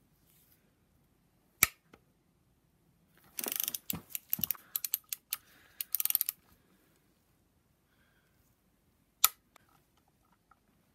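Torque wrench on the BMW N54 vacuum pump bolts: a sharp click about one and a half seconds in and another near nine seconds, as the wrench reaches its 97 lb-in setting. In between, a few seconds of quick ratcheting as the wrench is worked round to the next bolt.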